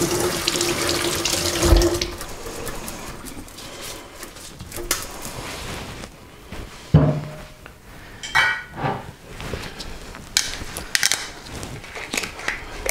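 Kitchen tap running as a potato is rinsed under it, shut off about two seconds in. Scattered knocks and clatter follow, with a sharp thud about seven seconds in.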